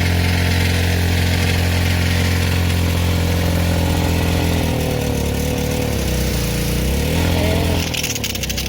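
Small gas engine of a Craftsman pressure washer running steadily after its carburetor has been cleaned. About five seconds in, its speed sags and then picks back up. Near the end a hissing, crackling noise joins it.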